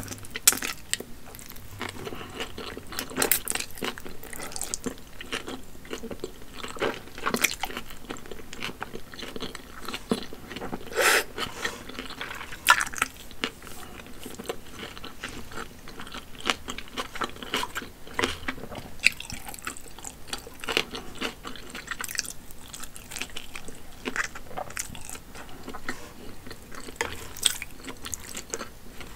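Close-miked mouth sounds of eating wide hand-pulled Shanxi noodles: wet slurping and chewing with many irregular smacks and clicks.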